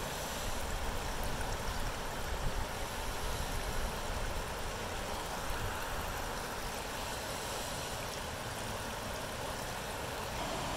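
Swollen creek in flood after heavy rain, fast muddy water rushing steadily as an even, continuous wash. Wind rumbles on the microphone underneath, a little stronger in the first few seconds.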